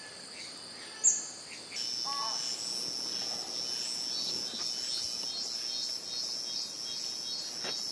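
Rainforest insects droning steadily at a high pitch, stronger from about two seconds in, with a brief sharp chirp about a second in and a short call just after.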